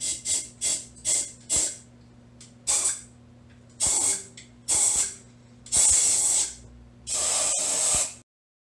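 Compressed-air blow gun hissing in a string of short blasts, then longer ones near the end. It is blowing leftover antifreeze out from between the pistons, ring lands and cylinder walls of an engine with its heads off.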